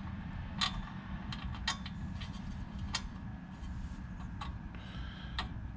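Light clicks and taps of fingers handling a carburetor gasket and its mounting screws on a small generator engine, about five scattered ticks over a steady low background rumble.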